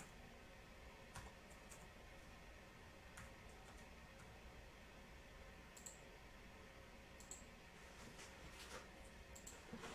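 Near silence with a handful of faint, irregular clicks.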